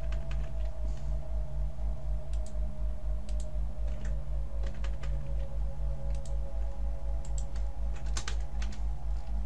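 Computer keyboard typing, scattered key clicks as resistor values are typed into a dialog box, over a loud steady low hum that pulses about four times a second.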